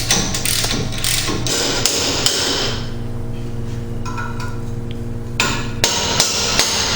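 Repeated metal hammer blows, several a second for the first couple of seconds, then three or four more near the end, while the tight bolts of the 1999 Dodge Ram 1500's front hub are worked loose. A steady low hum runs under the blows.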